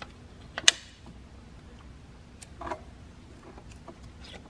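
A few sharp metallic clicks and taps, the loudest just under a second in, as a metal locating pin is worked into the S54 engine's camshafts to check the cam timing.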